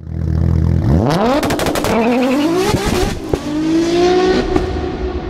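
Car engine idling, then accelerating hard from about a second in. The revs climb, drop back and climb again as it shifts up, with crackles and a sharp pop about three seconds in, fading toward the end.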